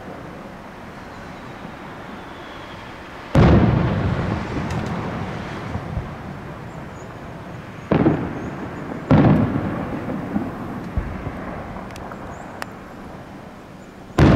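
Aerial firework shells bursting: four sudden booms, about four, eight, nine and fourteen seconds in, each fading out slowly over several seconds, with a few faint pops in between.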